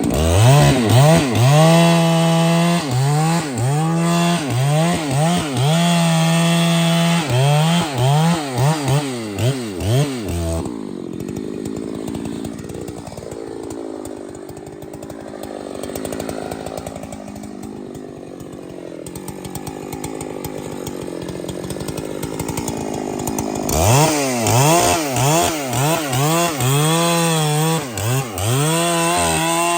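Large two-stroke chainsaw cutting through a big tree trunk, the engine speed sagging and recovering over and over as the chain bites. For about thirteen seconds in the middle the engine note drops out, leaving a quieter, rougher noise, then the saw cuts again.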